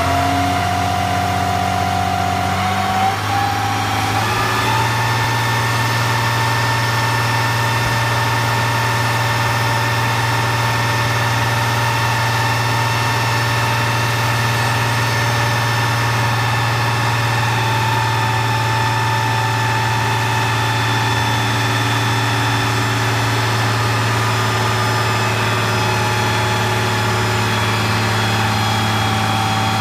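Ford TW-15 tractor's 6.6-litre six-cylinder diesel running steadily while driving a PTO dynamometer. Its pitch steps up about three to four seconds in, then holds.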